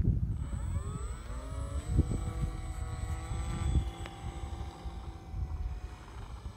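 Electric motor and propeller of a Durafly T-28 RC model plane spinning up with a rising whine, then holding a steady whine that fades as the plane rolls away down the runway.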